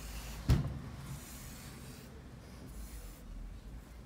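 Hands and yarn rubbing and rustling across a paper sheet, with one sharp thump about half a second in.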